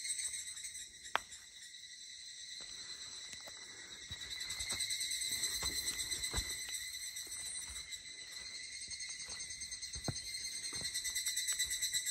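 Cicadas drone steadily in the surrounding forest with a fast pulsing buzz, and footsteps on the dirt trail sound as soft irregular thuds.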